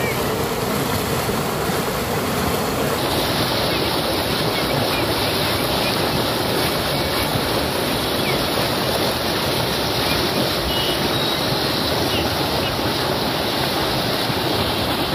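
Floodwater gushing up out of a drain in the road, a steady, loud rushing and churning of water.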